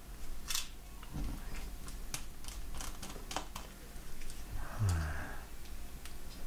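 Light, irregular clicks and taps of small screws, a screwdriver and small metal parts being handled while a laptop's heatsink is taken off.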